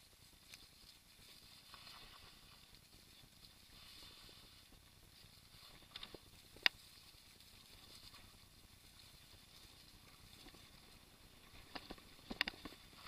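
Mountain bike riding over a dirt forest trail: faint steady rolling noise with a few sharp knocks and rattles as it goes over bumps, the loudest about six and a half seconds in and a quick cluster of them near the end.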